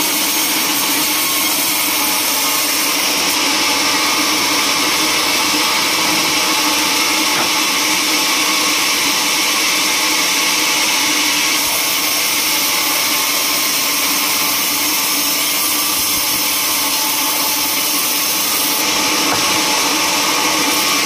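Band sawmill running with its blade cutting lengthwise through a teak log. The result is a loud, steady machine noise with a strong hissing top.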